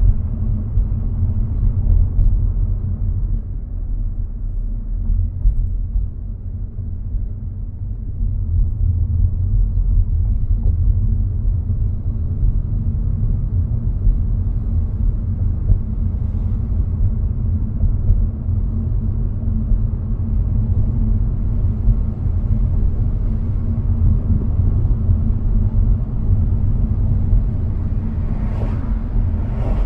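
Steady low rumble of a moving car's engine and tyres on the road, heard inside the cabin, with a steady hum over it. Near the end comes a brief whoosh.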